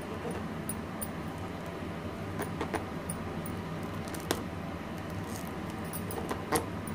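Soft handling sounds as a green chilli is pushed into a slit in a whole eggplant: a few small sharp clicks and rubs from fingers on the skin, the loudest about four and six and a half seconds in, over a steady low hum.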